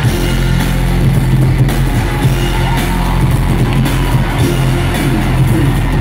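Loud live concert music played over an arena sound system, carried by a heavy, steady bass line, with no clear singing.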